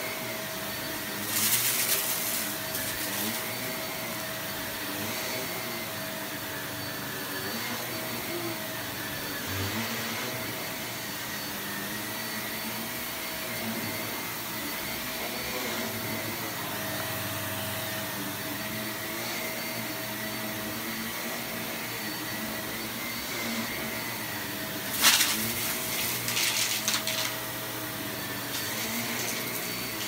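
Bagless upright vacuum cleaner running steadily as it is pushed over a rug, with a constant motor hum and whine. Short, louder bursts of clatter come about two seconds in and again near the end.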